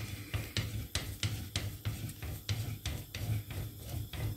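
Long thin wooden rolling pin rolled back and forth under the palms, rolling out lavash dough on a countertop: a steady run of light knocks, about three a second.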